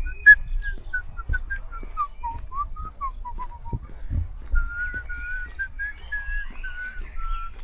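A person whistling a tune: a quick run of short notes stepping down in pitch, then longer held notes in the second half. Low thumps sound underneath.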